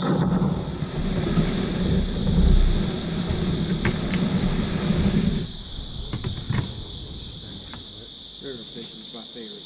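Plastic kayak hull dragged over a rocky, gravelly shore: a loud grinding scrape for about five and a half seconds, then lighter scuffs and knocks. Insects keep up a steady high trill behind it.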